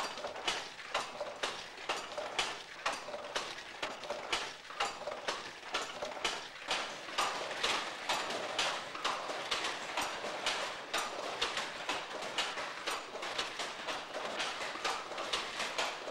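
Hand loom weaving: a steady, rhythmic clacking of about two to three knocks a second.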